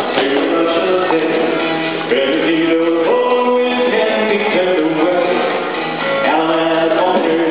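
Square dance singing call: a male caller singing the calls to the tune over recorded country-style music with a steady beat.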